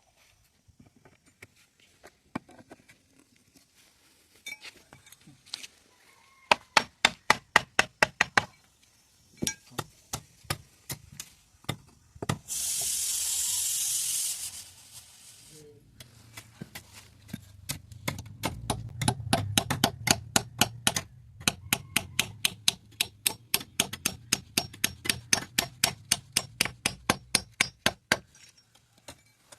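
Runs of sharp, regular knocks, several a second: a tool striking the bamboo handle of an earth rammer during its repair. A steady hiss of about two and a half seconds comes midway, and a low hum sits under the later knocks.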